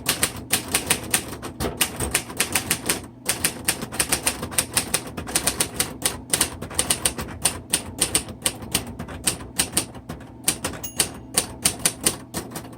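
1960 Royal Heritage portable manual typewriter being typed on: a quick, steady run of sharp keystrokes, about five a second, with a brief pause about three seconds in.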